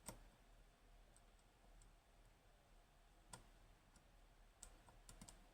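Faint clicks of a pick probing the pins in a dimple lock cylinder, checking that the pins are set: one click at the start, one a little past three seconds in, then several close together near the end.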